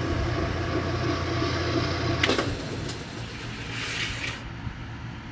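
Washing machine motor running with a steady hum, then a click a little over two seconds in after which the hum dies down. The motor is suspected of a failing high-speed winding.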